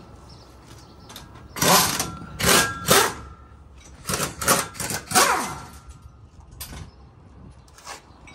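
Pneumatic impact wrench run in about seven short bursts over roughly four seconds, the last ones followed by a falling whine as the tool spins down, undoing the bolts of a truck differential being removed.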